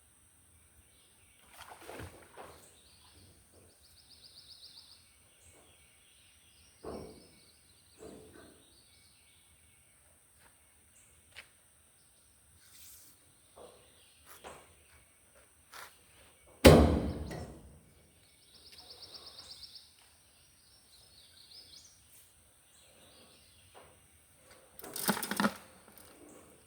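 Scattered knocks and thuds of a fishing magnet being dragged and worked among rocks, with one much louder thud about two-thirds of the way in. Small birds chirp now and then.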